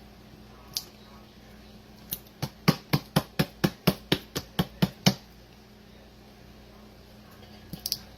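A quick run of about a dozen sharp knocks, roughly four a second for about three seconds, from working thick bacon ranch dressing out of a clogged new bottle. A single knock comes earlier, and a couple of light clicks come near the end.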